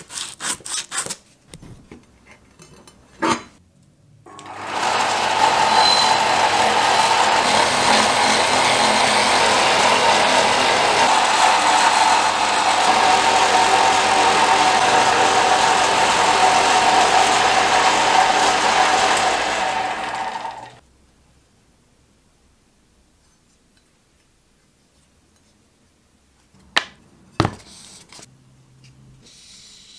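Motor-driven polishing wheel spinning with the steel cleaver blade held against it: a loud, steady grinding whir with a humming tone, starting a few seconds in and stopping about two-thirds of the way through. At the start, a few quick hand-sanding strokes on the blade; near the end, two sharp knocks.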